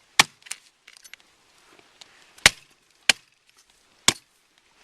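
A lightweight hatchet chopping into a skinny sapling near its base: about five sharp, unevenly spaced blows to the wood.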